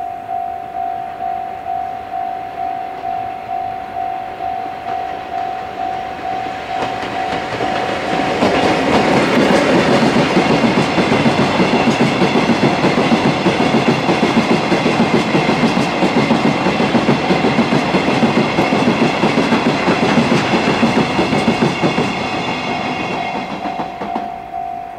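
Electronic level-crossing alarm ringing a repeating single-pitched ding, about three strokes every two seconds. From about seven seconds in, a train passes over the crossing, wheels clacking over the rail joints and drowning the alarm, until it fades near the end and the ding is heard again.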